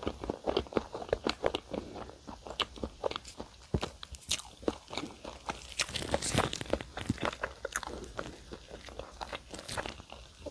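Close-miked chewing of flaky layered pastry with whipped cream and strawberries: a dense run of small crunches and wet mouth clicks.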